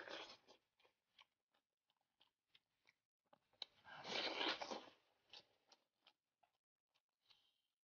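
Close-up eating sounds of spicy beef knee-joint bone with tendon and cartilage: faint scattered wet chewing clicks, with a louder stretch of chewing and crunching about four seconds in.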